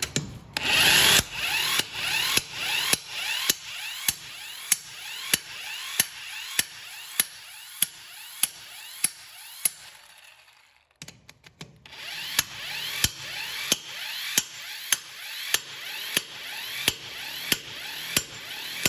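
12 V car impact wrench running on a wheel nut, its hammer striking a little under twice a second over the motor's whir. It stops for about a second around halfway, then starts hammering again, tightening the nuts back on.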